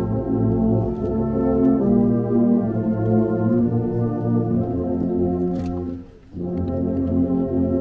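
Brass band playing slow, sustained chords, with a brief break about six seconds in before the chords resume.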